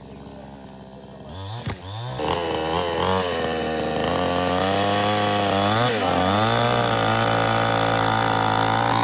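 Petrol two-stroke chainsaw coming in about a second and a half in. It revs up and down several times, then holds at steady high revs.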